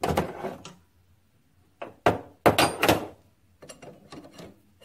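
Metal clatter and scraping from handling the four-jaw chuck of a small metal lathe while a workpiece is fitted into its jaws: a loud burst at the start, a quick cluster of loud scrapes about two seconds in, then lighter clicks.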